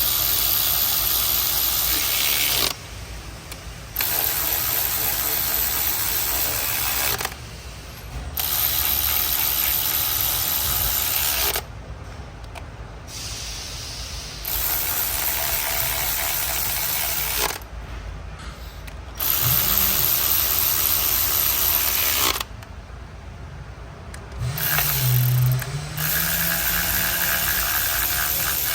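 Cordless power ratchet running in repeated bursts of about three seconds each with short pauses between, driving fasteners home.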